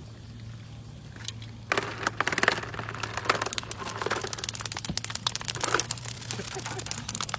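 Freshly landed skipjack tuna thrashing on a concrete pier, its tail beating the ground in a rapid, rattling patter that starts about two seconds in.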